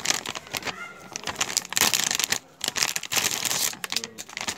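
Foil Lay's potato chip packet crinkling loudly in bursts as it is pulled open and a chip is drawn out.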